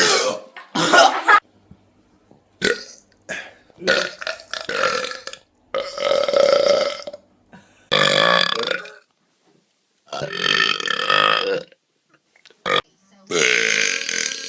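A string of loud human burps, one after another: about eight belches, most of them around a second long and a couple much shorter, with brief silences between.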